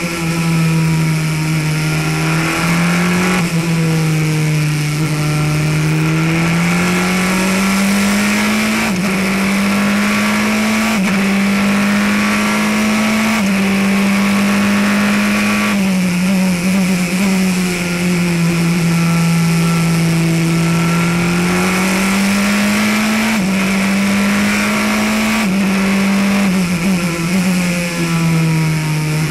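Praga R1T racing prototype's engine heard from the cockpit at racing speed, its pitch climbing under acceleration and jumping in sudden steps at each gear change, up and down through the gears, over steady wind and road noise.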